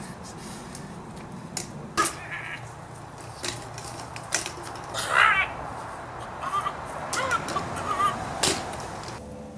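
A bird squawking: one loud squawk about halfway through, then a run of shorter calls, among scattered sharp clicks and knocks.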